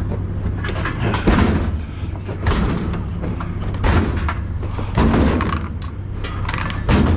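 Scrap metal pieces being unloaded and dropped: five heavy thumps and clatters spaced a second or so apart. A steady low hum runs underneath.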